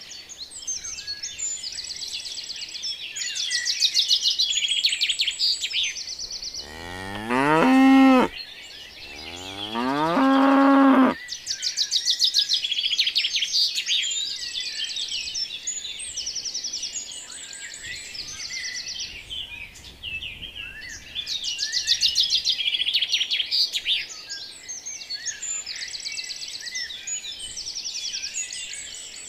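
A cow mooing twice, two long calls that rise in pitch and then hold, a quarter and a third of the way in, over continuous chirping birdsong.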